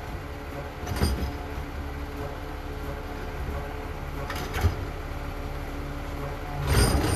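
Garbage truck engine running steadily, with a clunk about a second in and another past four seconds, then a louder run of clanking and banging near the end.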